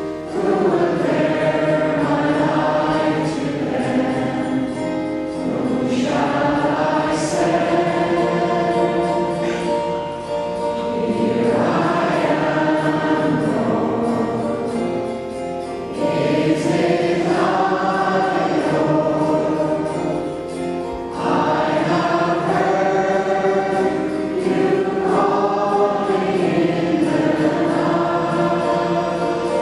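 A man singing a hymn to his own acoustic guitar accompaniment, in long phrases separated by short breaths.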